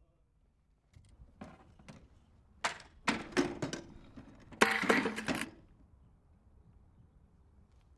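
A scatter of sharp knocks and clacks, then a short dense rattle about five seconds in.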